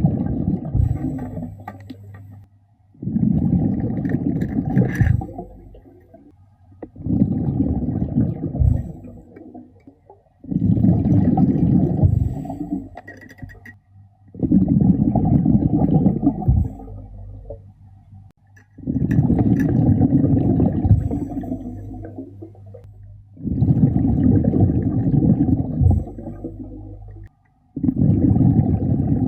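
Underwater, a diver's regulator breathing: a low, rushing gurgle of exhaled bubbles comes about every four seconds, each burst lasting two to three seconds with a brief pause for the inhale.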